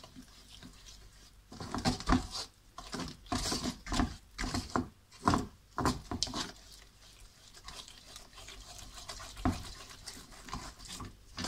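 Wooden spoon stirring caramel sauce with white chocolate melting into it in a white-coated frying pan: irregular scrapes and soft taps of the spoon against the pan, busiest in the first half and sparser after.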